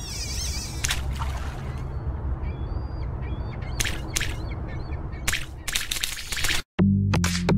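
Outdoor ambience with a low rumble and birds calling, with several short, harsh calls or noises. After a brief cut to silence about seven seconds in, electronic music with a heavy drum-machine beat starts.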